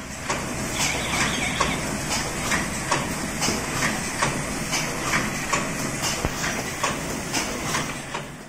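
Paper cup forming machine running: a steady mechanical clatter with a sharp clack about twice a second.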